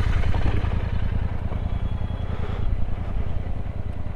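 Royal Enfield Interceptor 650's parallel-twin engine running steadily.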